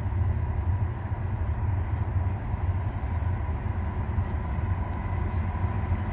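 Low, steady rumble of an approaching CSX train's diesel locomotive still some distance down the track.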